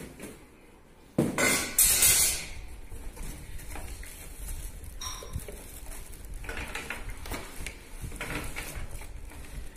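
Brush cutter parts being handled in a cardboard box: hard pieces clattering and plastic wrapping crinkling, with a loud burst of clatter about a second in, then steady rustling.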